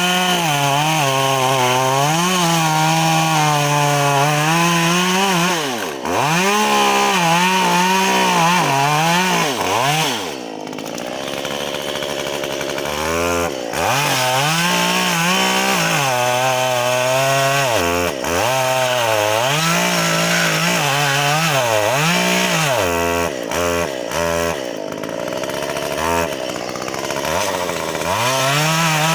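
Chainsaw cutting pine, its engine pitch swinging up and down as it revs and loads in the wood. It eases off to a lower, quieter running for a couple of seconds about ten seconds in, then revs up again.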